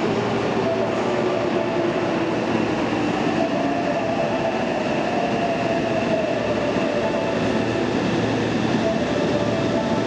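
Yokohama Municipal Subway 3000N electric train running into an underground station: a steady rumble of wheels on rail. A motor whine falls in pitch over the first few seconds.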